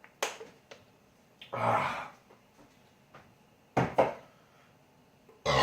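A few sharp knocks and thuds of objects being handled and set down on a hard surface: one near the start, two in quick succession about four seconds in, another near the end, with a short noisy rustle about one and a half seconds in.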